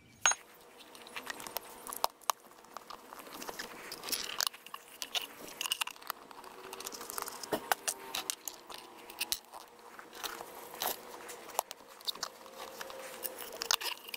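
Handling noise of rubber lids and metal cover plates being fitted onto rubber rock-tumbler barrels: a scatter of irregular clicks, taps and rubbing.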